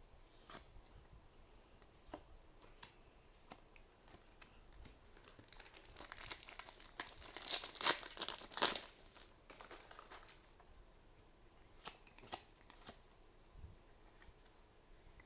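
A foil trading-card booster pack being torn open and its wrapper crinkled, loudest about halfway through, with light taps and clicks of cards being handled before and after.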